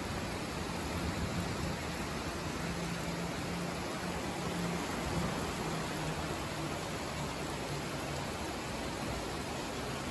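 Heavy rain falling in a steady, even hiss, with a faint low hum that comes and goes underneath.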